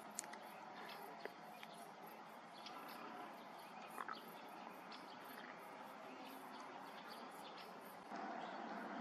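Faint evening field ambience: insects chirping high and fast in a steady rhythm of about three pulses a second, with a few short bird chirps. About a second before the end the chirping cuts off and a steadier, lower rumble takes over.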